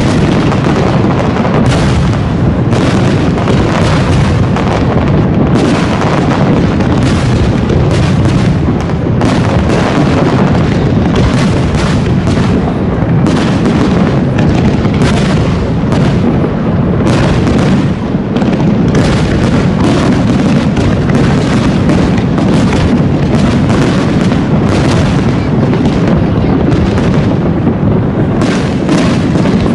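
Loud fireworks display going off in a dense, continuous barrage of bangs and crackles.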